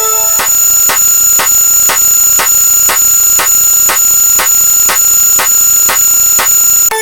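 Electronic alarm-like sound effect: a loud, steady buzzing tone with a high whine, pulsing with a click about twice a second. A short chord of lower notes cuts off just after it begins.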